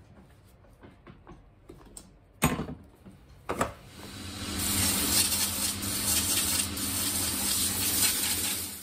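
Two sharp cracks as a screwdriver prises a leather heel block off a shoe. Then a cobbler's finishing machine runs with a steady low hum, its abrasive wheel grinding against the shoe with a loud, even hiss.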